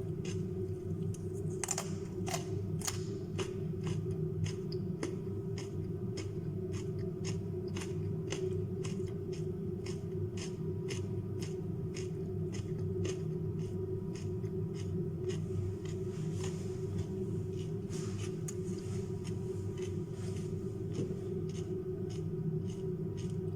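Mouth-close crunching and chewing of raw carrot and cucumber, with sharp crunches coming about twice a second.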